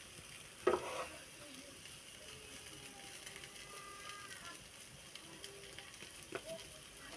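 A wooden spoon scoops grainy semolina halva into a ceramic bowl and presses it down, making a faint scraping. The spoon knocks sharply against the bowl just under a second in, and more lightly near the end.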